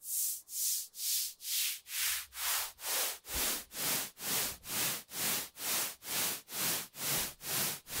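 Synthesized white noise from FL Studio's 3x Osc, pulsing in time in rounded swells about two a second under a sine LFO on its volume. Its high-pass filter cutoff is brought down over the first few seconds, so the swells go from a thin hiss to full-range noise.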